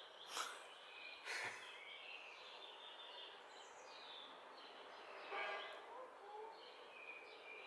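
Faint outdoor ambience with small birds chirping here and there. A few brief soft clicks and rustles come in the first second and a half and again about five seconds in.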